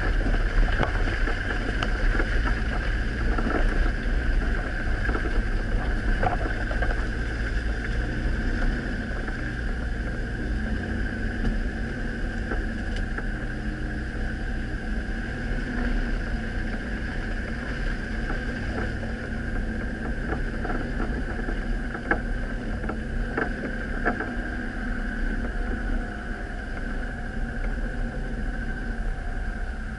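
Engine of the camera's own vehicle running steadily while driving a rutted dirt track, with frequent short knocks and rattles from the bumps.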